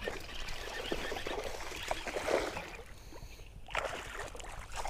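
Hooked bass thrashing at the water's surface beside a kayak, splashing water, with the biggest splash about four seconds in.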